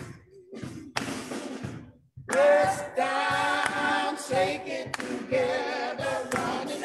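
Church choir and congregation singing a gospel offering song over a drum kit keeping a steady beat; the voices come in about two seconds in, after a few sharp drum hits.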